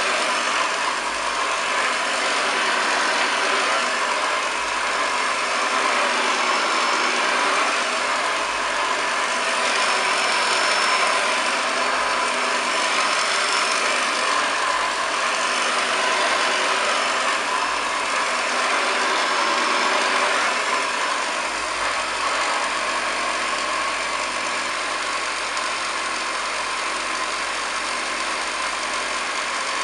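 Hoover Model 725 upright vacuum cleaner running steadily, its motor giving a constant whine.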